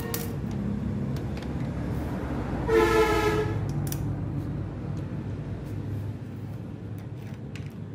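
Scattered sharp metallic clicks of a spanner working a bolt on a CNC machine's steel servo-motor mount, over a steady low rumble. A loud, short pitched honk cuts in about three seconds in and lasts under a second.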